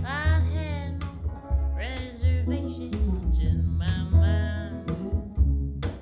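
A woman singing a slow melody in short phrases over plucked upright double bass and a picked guitar.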